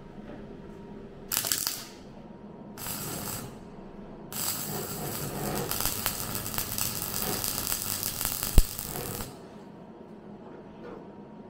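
MIG welder arc crackling on car body steel: two short tacks of under a second each, then a run of about five seconds with a single sharp pop near its end.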